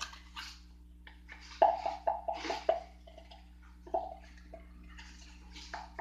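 Liquid glugging: a quick run of short watery plops about a second and a half in, one more near four seconds, and another run starting near the end.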